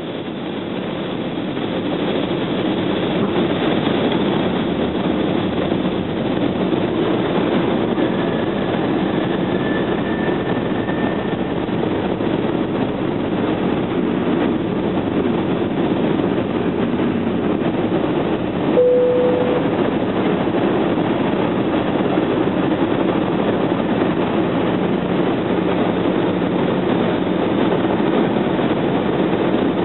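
Steady cabin roar of an Airbus A320 on descent, engine and airflow noise heard from inside the passenger cabin, fading in over the first two seconds. A brief beep cuts through about two-thirds of the way in.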